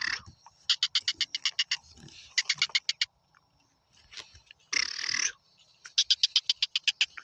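Black francolin calling: runs of rapid, grating pulses, about ten a second and each run lasting about a second, broken by short harsh rasping notes.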